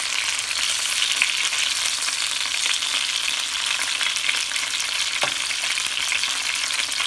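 Breaded chicken pieces shallow-frying in oil in a nonstick pan: a steady sizzle with fine crackling as a metal slotted spoon turns them over. A single light knock a little after five seconds in.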